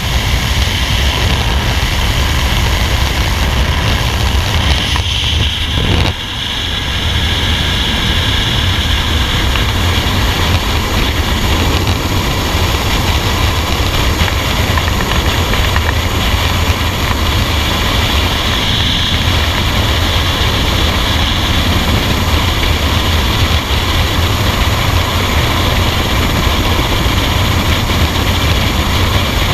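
Propeller aircraft's engine and airscrew noise at the open jump door, then, from about six seconds in, the steady rush of freefall wind buffeting the helmet camera's microphone.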